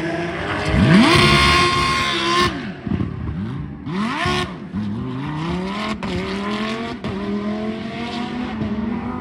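Several racing cars' engines accelerating out of a corner, with overlapping engine notes climbing in pitch through the gears. Some notes fall away as cars shift or pass.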